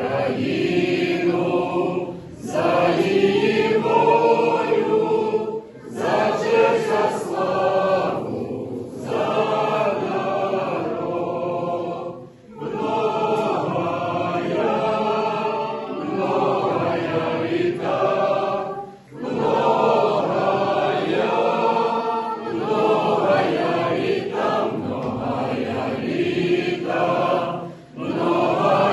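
Church choir singing a liturgical chant, in phrases of a few seconds separated by short breaths.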